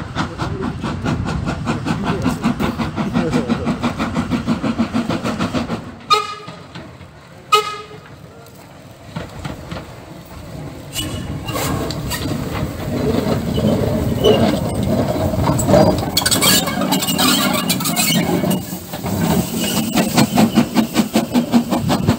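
Saddle tank steam locomotive running on the line, giving two short whistle toots about six and seven and a half seconds in, then drawing closer and louder with a rhythmic beat and a loud hiss of steam toward the end.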